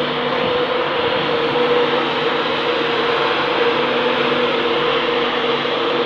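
Steady hum of a railway locomotive: a constant humming tone over an even, fan-like rushing noise that does not change.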